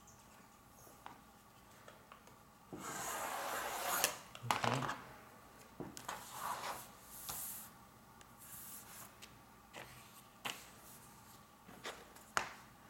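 Paper and a metal ruler being handled on a cutting mat. A loud rustle lasts about a second, followed by scattered crinkling, and several sharp taps near the end.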